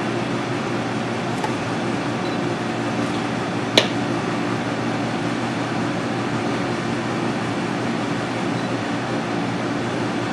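Steady hum of kitchen ventilation, with one sharp click about four seconds in.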